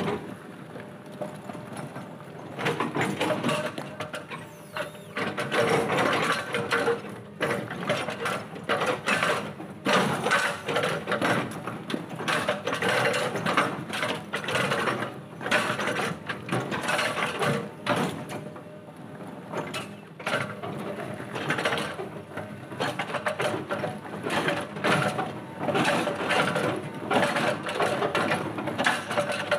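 Excavator-mounted hydraulic breaker (rock hammer) pounding on boulders: rapid, dense chisel blows in runs of a few seconds, with short breaks between runs.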